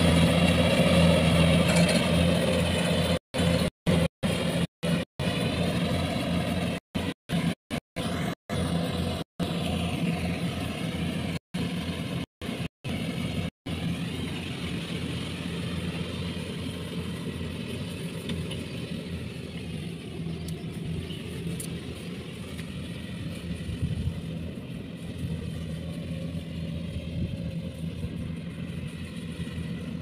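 Kubota combine harvester's diesel engine running steadily under load as it cuts rice, growing fainter as the machine moves away. The sound drops out completely for split seconds about a dozen times in the first half.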